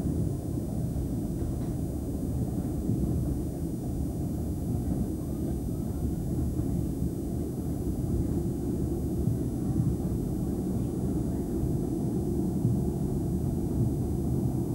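Steady low rumble of a moving railway passenger carriage, heard from inside as its wheels run along the track.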